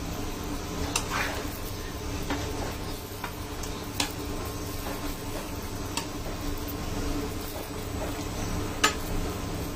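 A metal spatula stirring okra and potatoes in a coated wok of thin curry, scraping the pan, with about five sharp clinks of metal on the pan, the loudest near the end. A steady low hum runs underneath.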